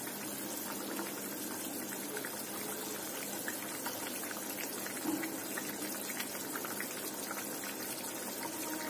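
Thin tamarind-tomato fish curry boiling hard in a pan: a steady bubbling hiss with small pops of bursting bubbles.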